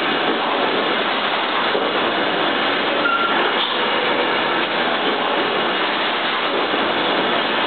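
Industrial meat-slicing and robotic loading machinery running with a steady mechanical noise, and a short high tone about three seconds in.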